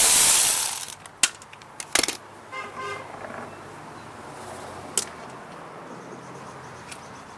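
A power driver spins out a bolt and stops about a second in. Then come a few sharp clicks and knocks as metal parts are handled, and a brief pitched toot around three seconds in.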